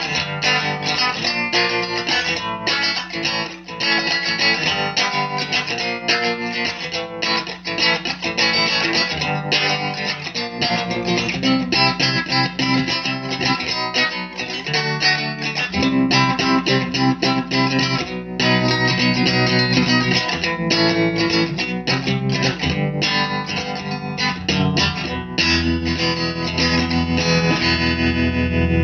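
Electric guitar played through a 1969 Elk Echo Pro-Sonic valve amplifier, freshly re-capped with new tubes and speakers: a continuous run of picked notes and chords, with a chord left to ring near the end.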